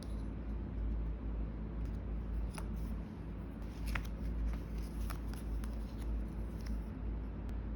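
Small handling sounds of miniature crafting: a few light clicks and taps of small parts being worked by hand, over a steady low rumble.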